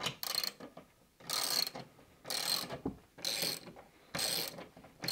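Hand socket ratchet tightening a bolt that holds a TV wall-mount bracket to the wall: a quick run of pawl clicks on each back-stroke, about one run a second.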